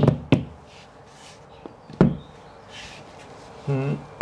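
Hammer tapping a plastic wall plug into a drilled hole: three sharp knocks, two in quick succession at the start and one about two seconds in.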